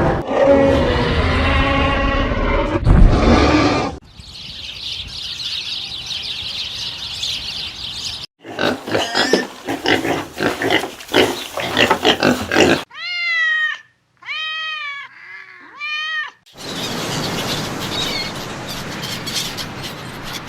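A run of different animal calls cut one after another: a loud low call for the first few seconds, then a high hissing sound, a quick series of clicks, three clear pitched calls that rise and fall, and finally a steady noisy stretch.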